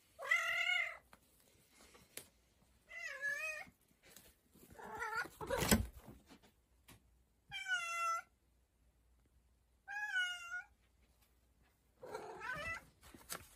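Domestic cat meowing six times, each call under a second long and about two seconds apart. A single sharp knock near the middle is louder than the calls.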